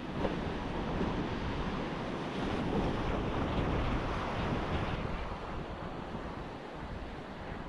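Ocean surf washing onto a beach, with wind buffeting the microphone. The wash swells just after the start and eases after about five seconds.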